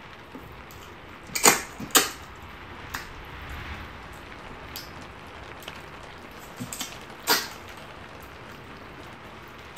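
Close-up eating sounds: sharp, wet lip smacks and sucking while chewing a piece of boiled beef held in the hands, loudest three times (about a second and a half in, at two seconds, and past seven seconds), with softer smacks between.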